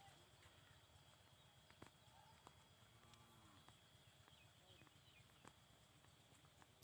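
Near silence, broken by a few faint, scattered clicks and knocks, with a faint distant voice about three seconds in.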